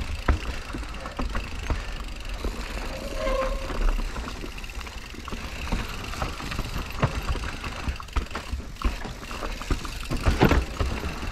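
Mountain bike riding over rough, rooty trail ground: a steady rattle of quick clicks and knocks from the bike over the bumps, over a low rumble. A short squeak comes about three seconds in, and a louder rushing scrape near the end.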